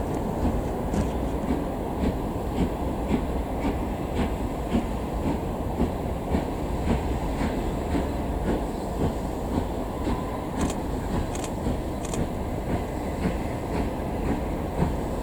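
A railway train running past with a steady rumble, its wheels clicking over the rail joints about twice a second.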